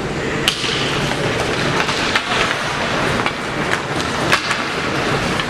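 Ice hockey game heard from the stands: a steady wash of rink noise with scattered sharp clacks of sticks and puck, about eight in a few seconds.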